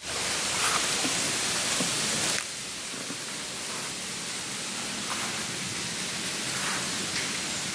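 Steady outdoor hiss with no voice or tones, louder for the first two seconds or so and then dropping to a lower, even level, with a few faint ticks.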